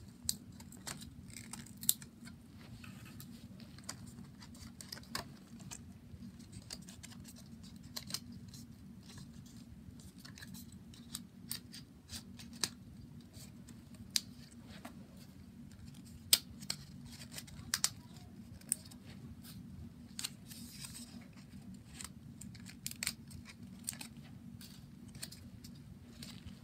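Lego pieces being handled and snapped together: scattered sharp plastic clicks and small rattles at irregular intervals, over a steady low hum.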